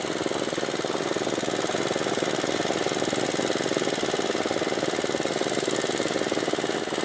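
A small engine running steadily with a fast, even knocking beat.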